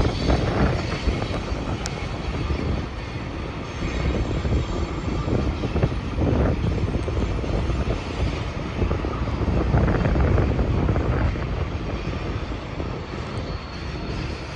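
Long freight train rolling past at a distance: a steady rumble of its cars on the rails, swelling a few times.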